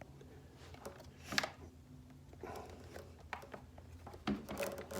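Handling sounds from a ResMed S9 CPAP machine and its hose: a sharp click about a second and a half in, then scattered small clicks and rustles, over a faint steady low hum.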